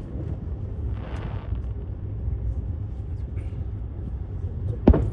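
A lull in an outdoor fireworks display: a steady low rumble with a short hiss about a second in, then one sharp firework bang near the end.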